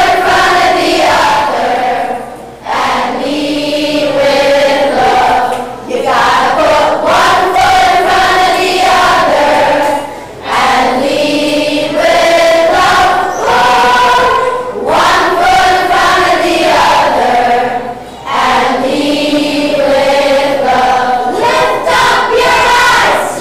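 Elementary-school children's choir (grades 3 to 5) singing a song together, in phrases with short pauses for breath between them.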